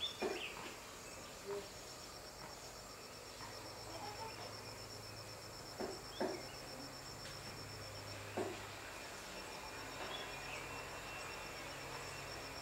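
A cricket chirping in a steady, high, evenly pulsed trill, broken briefly near the end. A few short, soft sounds stand out over it, two close together about halfway through and one a little later.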